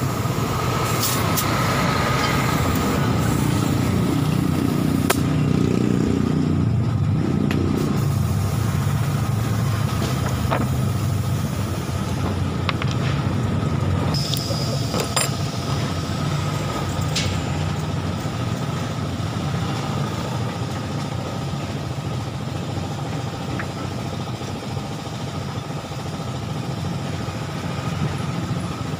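An engine idling steadily, a little louder in the first half, with scattered light clicks and knocks from hands working on a steel wheel rim.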